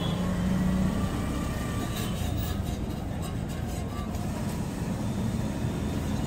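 Steady low rumble of busy background noise with a low hum, and a few faint soft knocks about two to four seconds in as boiled potatoes are broken into a steel bowl.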